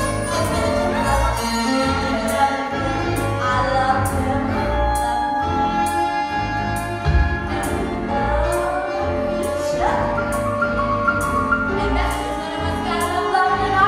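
A group of voices singing together with long held notes over a steady beat.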